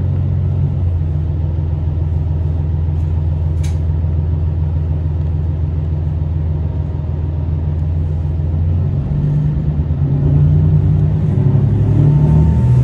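Diesel engine of a Tosa Kuroshio Railway 9640 series railcar heard from inside the passenger cabin, running with a steady low drone. About nine to ten seconds in its pitch shifts and it grows louder as the railcar pulls along the platform. A single brief click comes about four seconds in.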